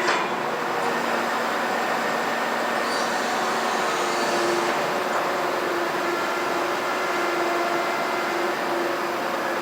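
Heavy construction machinery running steadily, a continuous engine hum with a short clank right at the start.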